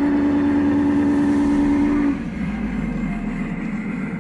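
Sound-equipped G-scale model steam locomotive sounding its whistle from its onboard speaker: one long steady chord that cuts off about two seconds in, leaving the lower rumble of the train running.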